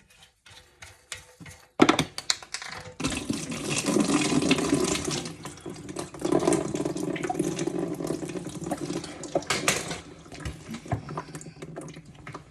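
Water running and splashing for several seconds as the fill valve's nut under the toilet tank is undone and leftover water drains out, with clicks and a sharp knock of plastic parts before it and scattered clicks after.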